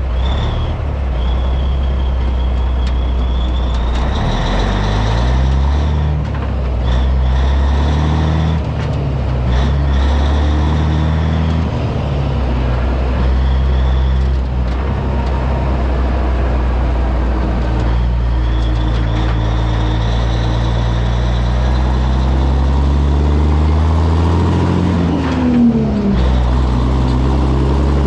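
1984 Peterbilt 362 cabover's diesel engine pulling away under load and accelerating through the gears. Its pitch climbs in steps with each shift, then holds steady, then climbs again later on.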